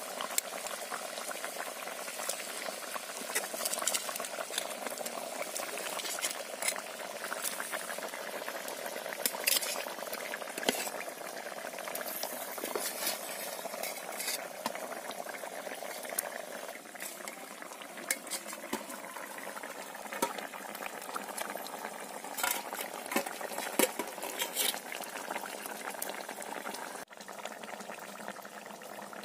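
Fish curry boiling hard in a wide metal kadai, a steady bubbling. Over it come frequent sharp clinks of a metal spatula against a steel plate and the pan as fried fish are slid into the curry.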